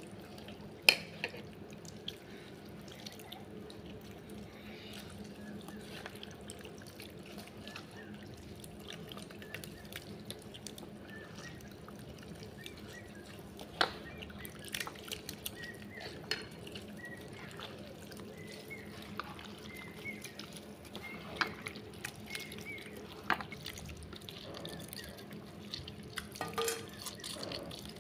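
Hands squeezing and mashing crushed jamun (Java plum) pulp in a metal basin: wet squelching and dripping juice, with scattered sharp clicks.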